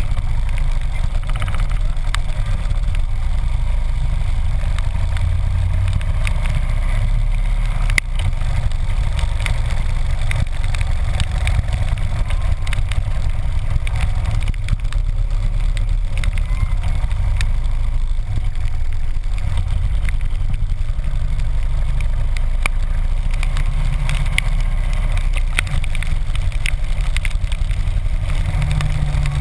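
Harley-Davidson V-twin motorcycle engine running steadily as the bike cruises on a wet road, with a hiss of wind and tyre spray over it and a sharp click about eight seconds in.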